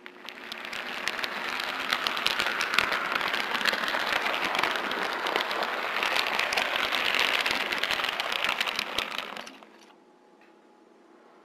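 HO scale model train rolling along the track, picked up by a small camera riding on a flat car: a dense rattling clatter of metal wheels on the rails that builds up just after the start and dies away about nine and a half seconds in.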